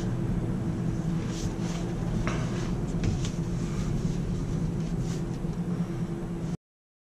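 Steady low rumble of tyre and road noise inside a Tesla Model 3's cabin, with a constant hum and a few faint ticks. It cuts off abruptly near the end.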